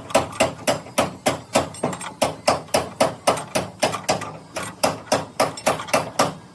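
A hammer striking metal in quick, evenly spaced blows, about four a second, each with a short ring. The blows stop near the end.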